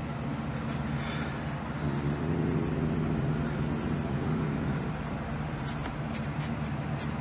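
Steady low mechanical hum, swelling slightly a couple of seconds in.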